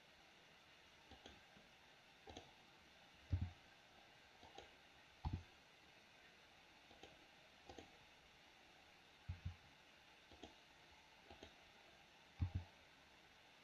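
Computer mouse buttons and keyboard keys clicking at irregular intervals, about a dozen clicks, several in quick pairs, over a quiet background.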